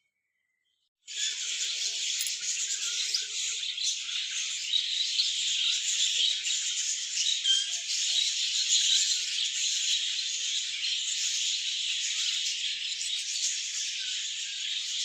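Dense, continuous chattering of a large flock of small birds in an aviary, starting abruptly about a second in, with a few sharper chirps standing out.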